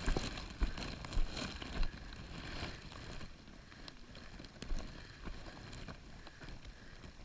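Footsteps on wet rock and small knocks from handling a body-worn camera, over a low steady wind rumble on the microphone. It gets quieter after about three seconds, once the walking stops.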